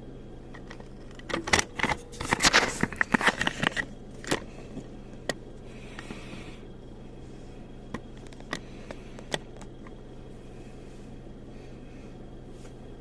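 A burst of clattering from small hard objects being handled, about a second in and lasting a few seconds, followed by a handful of isolated clicks, over a steady low hum.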